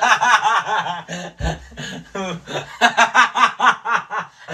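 A man laughing hard in quick, repeated bursts of about five a second, easing off in the middle and picking up again near the end.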